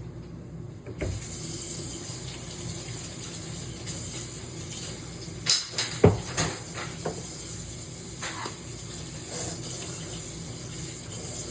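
Steady hiss of running water, starting about a second in, with a handful of sharp knocks and clatters around the middle.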